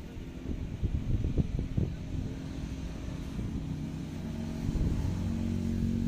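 A motor engine's steady low hum, growing louder in the second half, over an irregular low rumble.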